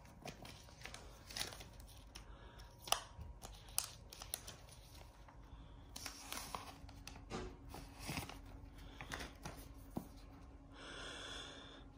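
Clear plastic shrink wrap being torn and peeled off an iPhone SE box: faint crinkling with scattered small crackles and clicks.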